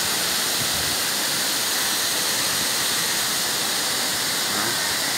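Pongour waterfall: a steady rush of water cascading over its rock terraces, even and unbroken throughout.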